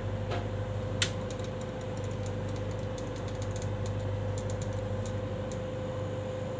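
Fluorescent tube light fitting being switched on: a sharp click about a second in, then the glow starters ticking irregularly as the two tubes try to strike, over a steady low hum. The fitting has just had its burnt tube holder replaced, and both tubes now light.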